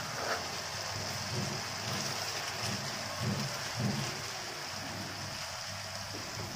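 Onion-tomato masala sizzling and bubbling in oil in a kadai as it cooks down: a steady hiss.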